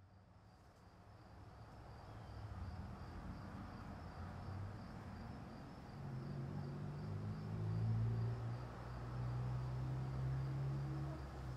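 Crickets chirping in a steady, finely pulsing high trill, fading in from silence, with a low hum swelling underneath from about six seconds in.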